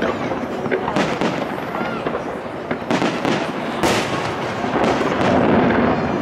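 Aerial firework shells bursting overhead, a sharp bang roughly every second over continuous rumble and echo from the display.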